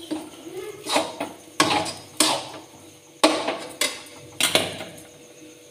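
Metal spatula knocking and scraping against a steel cooking pan as food is stirred: a run of irregular clanks with a short metallic ring, fading away near the end.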